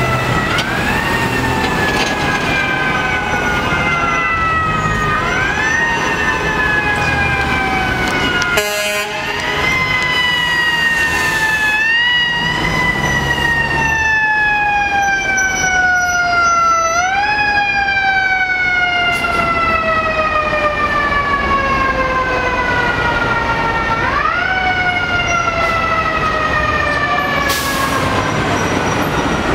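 FDNY fire engine's mechanical siren, wound up again and again. Each time the pitch rises quickly, then coasts down slowly over several seconds before the next wind-up. City traffic noise runs underneath.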